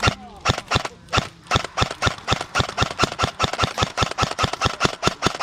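Airsoft gun firing a rapid, even string of shots, about seven a second.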